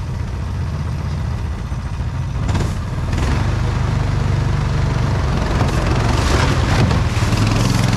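Engine of a 1970s Amphicat 6x6 amphibious ATV running, getting louder about three seconds in as the machine goes over a steep dirt drop, with several knocks and scrapes as it bumps down the bank.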